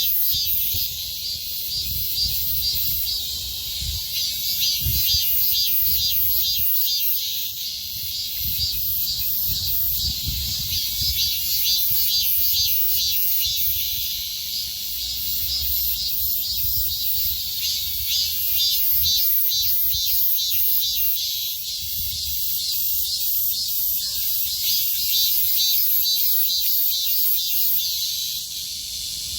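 Cicadas singing in a midsummer chorus: a loud, steady high-pitched buzz that pulses rhythmically, with a low rumble underneath.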